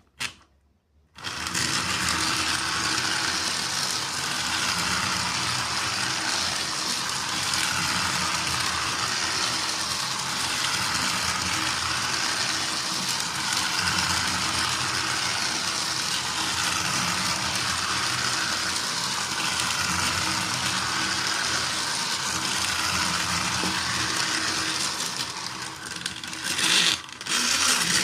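Small battery-powered motor and plastic gears of a toy electric train engine whirring steadily as it runs. The whirring starts about a second in, after a short click, and drops briefly near the end.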